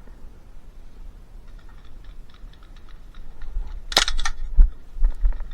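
Airsoft gun firing a quick burst of sharp cracks about four seconds in, with the rustle and low thumps of a player moving.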